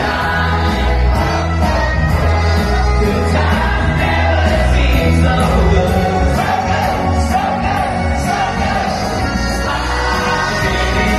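Loud upbeat dance music from a live cabaret show, with a heavy, steady bass beat and several voices singing together.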